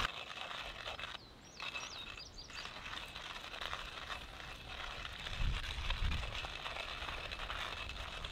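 Quiet open-air background with a few short bird chirps between one and three seconds in, and a brief low rumble a little past the middle.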